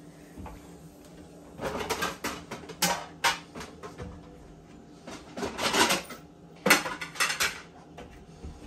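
Dishes and metal utensils clattering and scraping in a kitchen, in two spells of clinks: one about two seconds in and another from about five to seven and a half seconds.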